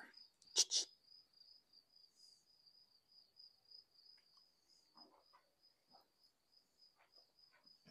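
A cricket trilling steadily in one high, finely pulsing tone. Two short sharp noises come about half a second in, with a few faint scattered knocks later.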